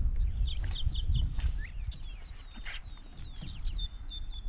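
Small birds chirping: quick runs of short high notes and thin falling whistles, over a steady low rumble of wind on the microphone.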